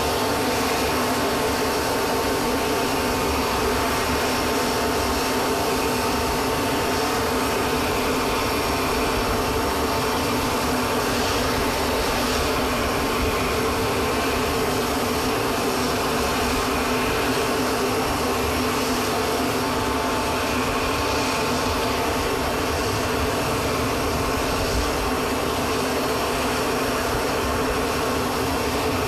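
Steady whine and rush of a transport aircraft's turbine running, with a constant high tone over the noise, heard inside the plane's cargo hold.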